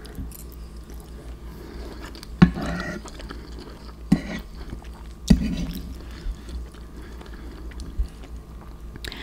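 Close-up chewing of soft macaroni and cheese, with three sharp clicks about two and a half, four and five seconds in.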